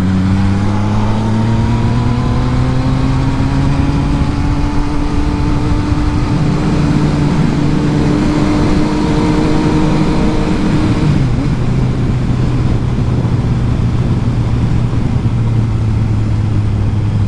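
Yamaha MT-09's inline three-cylinder engine running under way through traffic, its note rising over the first few seconds as it picks up, holding steady, then falling away about eleven seconds in, over road and wind noise.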